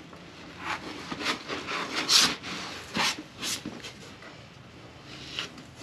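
A person moving about and handling things: about half a dozen irregular scuffs and knocks spread over several seconds, the loudest about two seconds in.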